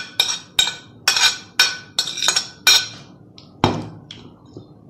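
Metal spoon clinking and scraping against a steel serving platter while meat is spooned onto it. There are about eight quick clinks, each with a short ring, in the first three seconds, then one duller knock.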